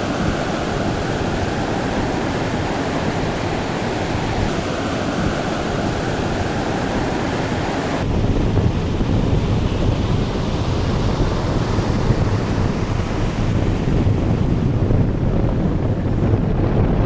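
Steady rush of sea water and wind. About eight seconds in it changes abruptly to a heavier, low wind rumble on the microphone.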